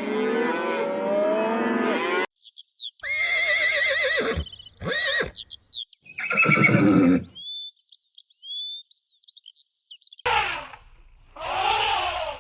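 Cattle lowing together, cut off abruptly about two seconds in. Then horse whinnies, three calls, with small birds chirping between them, and two shorter, noisier horse calls near the end.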